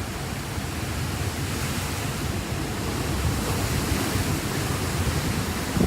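Hurricane-force wind blowing steadily, with wind buffeting the microphone and a deep rumble in the low end.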